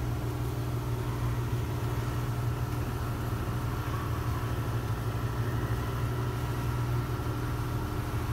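A sailboat's inboard engine running steadily under way, a constant low hum that does not change, with a hiss of wind and water over it.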